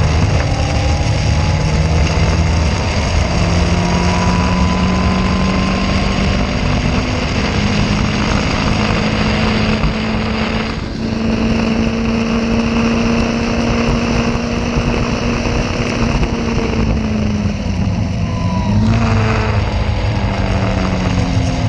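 Caterham race car's engine heard on board at speed, its pitch climbing slowly, then holding steady for a long stretch before dipping and climbing again near the end, over a steady rush of noise.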